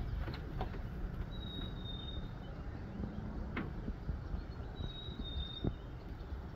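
Light clicks and knocks of an aluminium-framed solar panel and its mounting brackets being handled and set down on a camper roof, over a low steady rumble. A thin high whistle comes twice, about three seconds apart.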